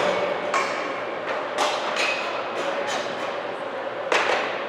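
Sharp knocks and taps of broomball sticks on the ice and boards, four or five of them, over the steady hum of an indoor rink.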